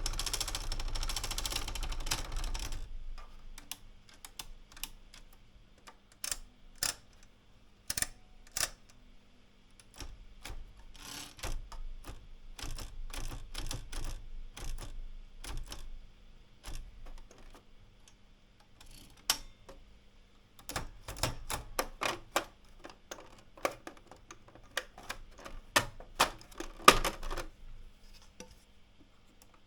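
Manual portable typewriter, an AEG Olympia Regina de Luxe, being worked. A dense mechanical rattle runs for the first two or three seconds, then come scattered irregular clicks and short runs of clacks from the keys and mechanism.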